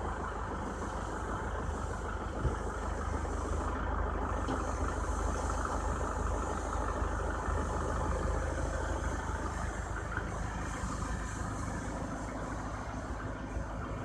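Car moving off and driving slowly: a steady low rumble of engine and tyres, with a single short knock about two and a half seconds in.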